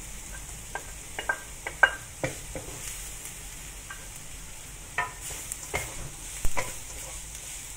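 Smoked beef slices, onion and lemongrass sizzling in oil in a non-stick wok while being stir-fried with a wooden spatula, which knocks and scrapes against the pan at irregular moments.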